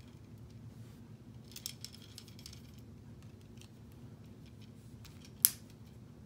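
Plastic K'nex pieces clicking as a ride seat is handled and snapped onto a gray connector rod: a flurry of small clicks, then one sharp snap near the end.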